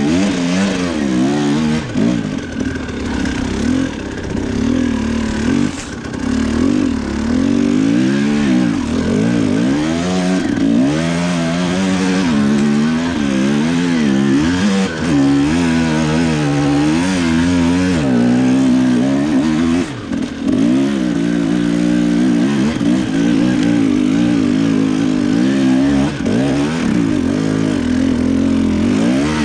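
Husqvarna TE 300 two-stroke enduro bike's engine, ridden through snow: the revs rise and fall again and again with throttle blips, holding steadier for a few seconds later on.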